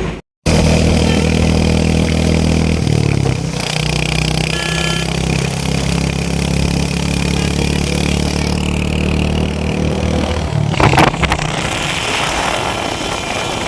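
Royal Enfield Hunter 350's single-cylinder engine running steadily with a deep, even note, its pitch shifting about three seconds in. A brief clatter near the end.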